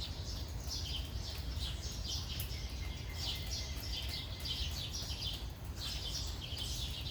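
Birds chirping: a steady stream of short, high, repeated calls, over a low steady background rumble.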